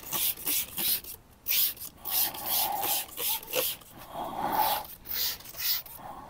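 Trigger spray bottle squirting leather cleaner onto a leather car seat in quick repeated pumps, about three short hissing squirts a second with a brief pause a little after the start.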